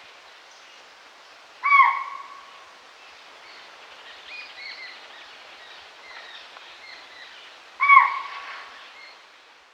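Spotted deer (chital) giving two sharp, high alarm calls about six seconds apart, each trailing off in echo. Fainter short chirps sound between them over a soft, steady forest background.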